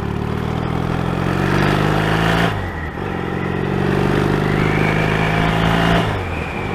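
Motorcycle engine pulling under acceleration, its pitch climbing, then dropping sharply at a gear change about two and a half seconds in, climbing again and shifting up once more near the end.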